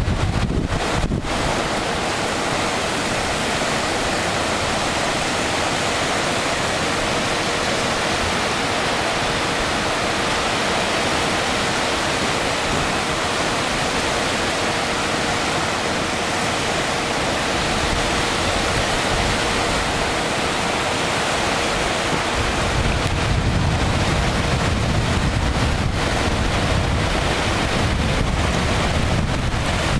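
Small surf breaking and washing onto a sandy beach, a steady hiss, with wind buffeting the microphone; the low wind rumble grows stronger about three quarters of the way through.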